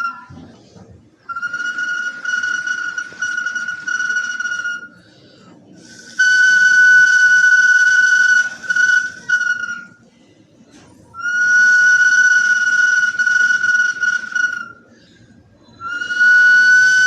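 Ceramic whistling bottle sounding four long, steady whistles at one high pitch, each about three and a half seconds long, with short pauses between them. The first whistle is broken into several short pulses.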